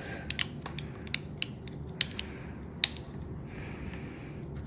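Small wrench clicking about ten times in quick, uneven ticks as it works the flare nut of a hydraulic brake hose at a Shimano Dura-Ace brake shifter, the last click the loudest, followed by a brief soft rustle.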